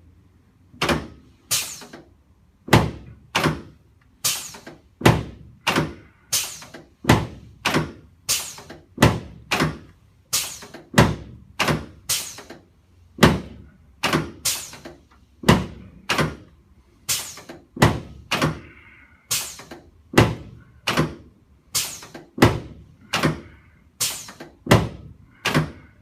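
Chiropractic adjustments on a treatment table: a long run of sharp thunks, about one to two a second and often in close pairs, as the patient's spine and pelvis are adjusted.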